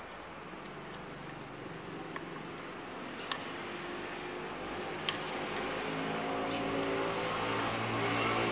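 A small fork mashing banana in a bowl, with two sharp clicks of the fork against the bowl, over a steady engine-like hum that grows louder toward the end.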